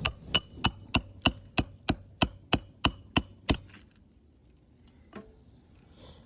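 Hand hammer driving a roofing nail through an asphalt shingle: about twelve steady, ringing blows, roughly three a second, that stop partway through.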